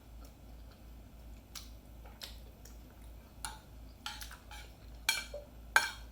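Cutlery clicking lightly against a plate while eating: a scattering of short, irregular clinks, the loudest near the end.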